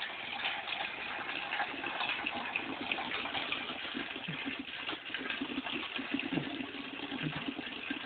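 Hot water gushing in a steady stream from the outlet spout of a wood-fired drum water heater and splashing onto the ground, pushed out as fresh water is poured into the top.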